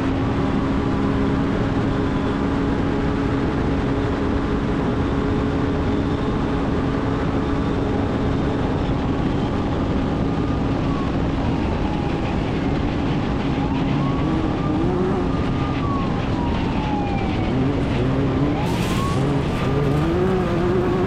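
Off-road race vehicle engine running hard at speed, heard from on board over heavy rumble from the course. The engine holds a steady pitch for most of the time, then rises and falls in the last few seconds as the vehicle slows and accelerates. A brief sharp rattle or hit comes near the end.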